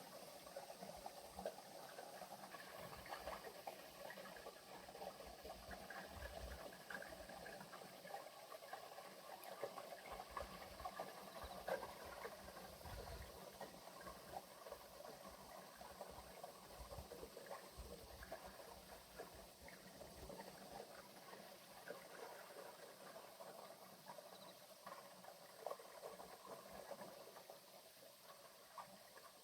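Faint trickling, splashing water with a dense, continuous crackling patter of small clicks.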